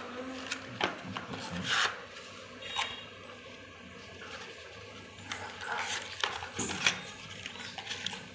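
A USB cable's packaging being opened and handled by hand: scattered rustling and light clicks and clinks, with a few louder bursts.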